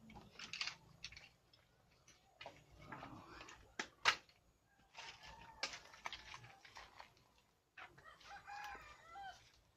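Cut firewood sticks knocking and clattering as they are stacked onto a heap of shells, with a sharp wooden clack about four seconds in. A rooster crows near the end.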